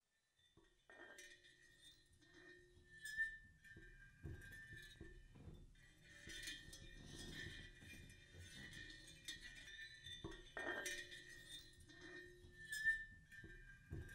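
Quiet song intro of faint, sparse glassy clinks and short ringing tones, with two louder clinks, one about three seconds in and one near the end.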